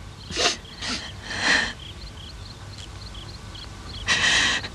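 A young man crying: three sharp sniffling, sobbing breaths, about half a second, a second and a half, and four seconds in.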